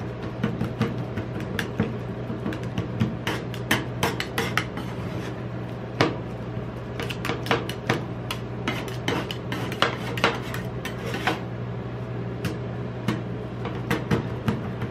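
Two metal spatulas chopping and scraping an ice cream base with chocolate pieces on the stainless-steel cold plate of a rolled ice cream machine. The sound is quick, irregular clacks and taps of metal on metal, over a steady low hum. This is the chopping and mixing stage before the base is spread thin and rolled.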